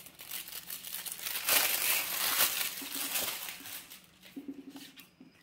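Clear plastic shrink-wrap film being pulled off and crumpled from a sealed e-reader box, crinkling and crackling. It is loudest in the first half and thins to a few faint crinkles near the end.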